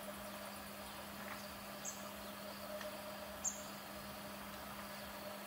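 Quiet outdoor ambience: a steady insect drone, with two short, high-pitched chirps.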